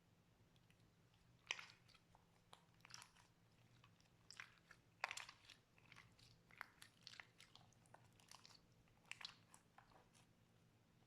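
Slime being squeezed and worked by hand, giving faint, irregular sticky crackles and pops, a few sharper ones standing out.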